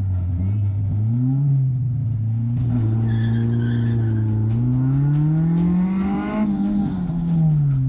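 Car engine being driven hard, its pitch rising as it pulls through the revs, climbing again to a peak and then falling off near the end. A hiss joins in about a third of the way through.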